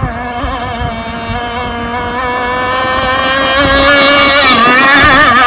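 Enforcer Stingray RC hydroplane racing across the water at speed, its motor giving a steady pitched whine that creeps up in pitch and grows louder as the boat approaches, the pitch warbling near the end.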